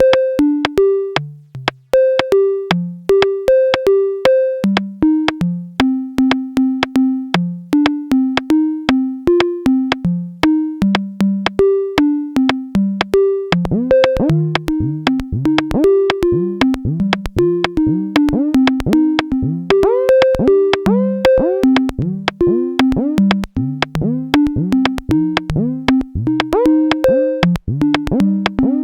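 A software modular synthesizer patch plays a stepping melody of short, plucky synth notes over clicking drum-machine-style percussion, its notes set by random voltages quantized to a scale. About 13 seconds in, more voices join, their notes sweeping in pitch as each one starts, and the pattern grows denser.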